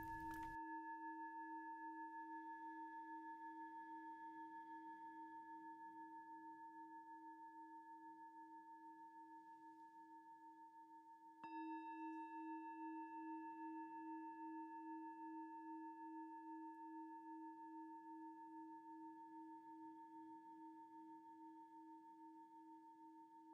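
Singing bowl ringing with a slowly wavering pulse and fading gradually. It is struck again about halfway through, then rings on and fades once more.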